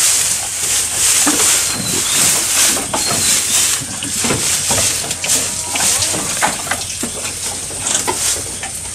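Goats tearing at and chewing fresh green grass fodder close to the microphone: irregular crunching and rustling of leaves and stems.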